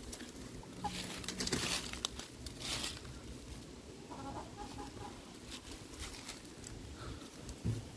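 Backyard hens clucking briefly, about four seconds in, with dry leaves rustling and crunching in the first few seconds and a short thump near the end.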